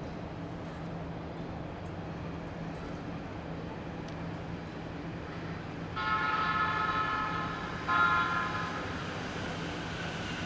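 Electric commuter train's horn sounding twice: a long blast of nearly two seconds, then at once a shorter one, over a steady low hum of city traffic.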